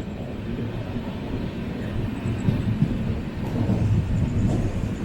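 Steady low rumble of a sleeper-class passenger coach running on the rails, heard from aboard the train as it gets under way from a station stop.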